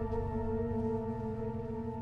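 Soft background music: a held, ambient-style chord of steady tones over a low pulse, slowly fading.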